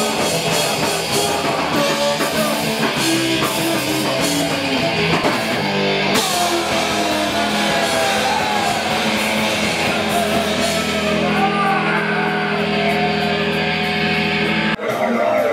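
Loud rock music. From about six seconds in it settles into a long held chord, which cuts off abruptly near the end, and a voice starts just after.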